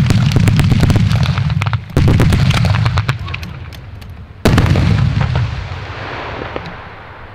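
Aerial fireworks going off: sudden loud bursts about two seconds in and again about halfway through, each followed by a low rumble that dies away, with dense crackling of launches and stars throughout.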